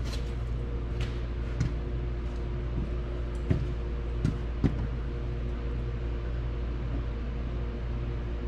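Steady low mechanical hum, with about five light knocks and clicks scattered through the first five seconds.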